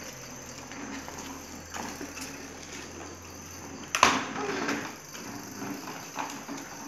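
A child's bicycle with training wheels being wheeled over rough concrete, its wheels and loose parts rattling and clicking unevenly. A single sudden loud knock comes about four seconds in.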